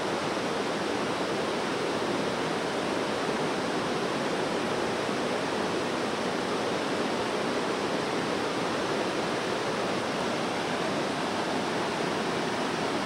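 Large waterfall in heavy flow, its falling water rushing steadily.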